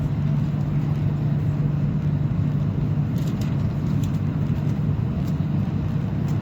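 Steady rumble and low hum of a high-speed train running at about 350 km/h, heard from inside the carriage.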